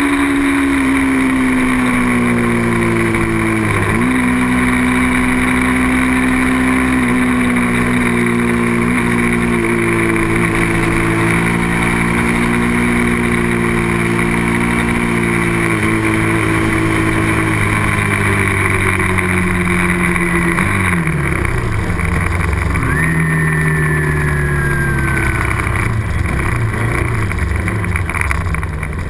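Small-displacement racing motorcycle engine running hard at high revs, its pitch dropping and climbing again at several gear changes.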